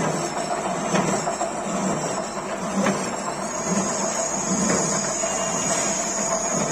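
Horizontal milling machine cutting a slot in a steel bar with a slitting-saw cutter: a steady machining noise with a high whine and a low pulse about once a second.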